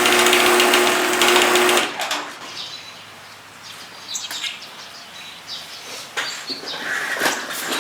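Garage door opener motor running with a steady hum and rattle, stopping abruptly about two seconds in; after that only faint scattered small sounds.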